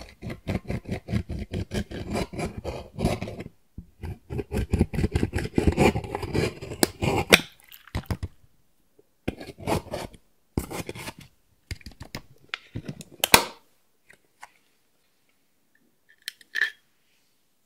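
A small tool scraping and crumbling pressed eyeshadow out of the pans of a metal palette in quick, rapid strokes, with a short pause about three and a half seconds in, stopping about seven and a half seconds in. Scattered taps and clicks follow, the sharpest about thirteen seconds in.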